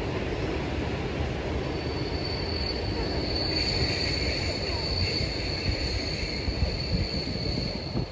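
A loud, steady rumble with a thin, high squeal held from about two seconds in until near the end.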